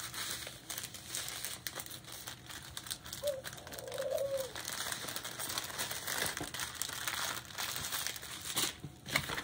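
Crinkling and rustling of small plastic bags of diamond-painting drills being handled, with a brief low tone about three to four seconds in.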